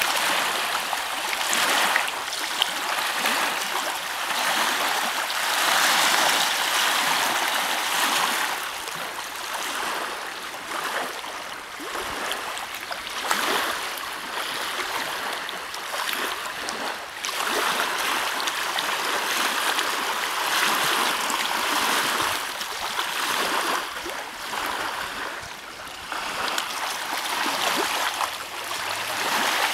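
Small wind-driven lake waves lapping and splashing at the shore, a steady rushing wash of water that swells and eases every few seconds.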